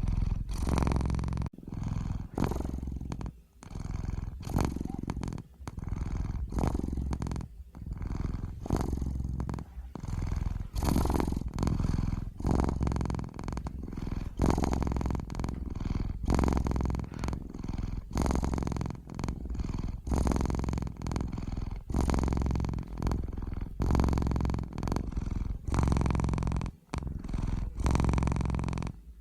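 Domestic cat purring close up: a continuous low rattle that swells and dips in a steady cycle, with short pauses every second or two.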